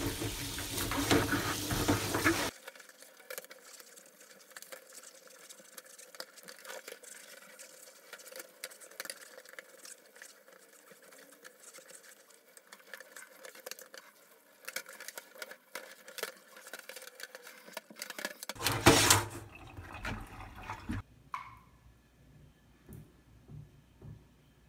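Hot water running into a stainless steel sink while a brush scrubs a range hood's metal mesh grease filter. The loud running water cuts off after about two and a half seconds, leaving quieter scrubbing and knocks, and a short loud gush of water comes back near the end.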